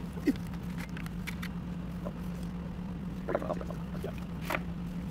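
Small clicks and taps of hands handling a bare hard-drive circuit board and its cables on a table, with a few sharper clicks in the second half, over a steady low hum.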